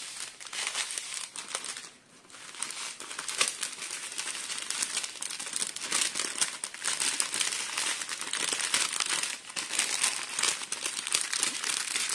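Plastic packaging crinkling: a strip of small sealed bags of diamond-painting rhinestones handled and pushed into a clear plastic bag, with many small crackles and a short lull about two seconds in.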